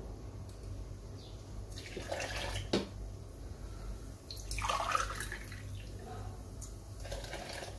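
Water poured from a jug into a drinking glass and tipped into a plastic blender jar, in three short pours, with a sharp knock about three seconds in.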